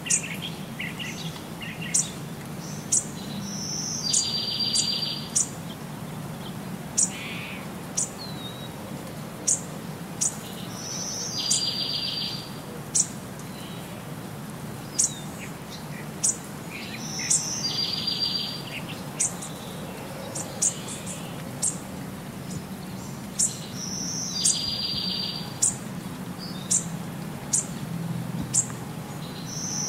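Birdsong: short, sharp, high chirps every second or so, and a buzzy trill that comes back evenly about every six to seven seconds, like a looped recording of bird calls.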